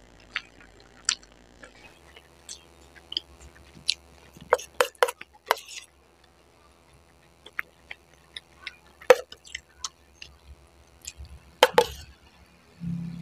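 Close-up eating sounds: wet chewing and mouth noises, and a metal spoon clinking and scraping in a pot as chili sauce is scooped out. The sounds are scattered sharp clicks, with a few louder clinks in the middle and near the end.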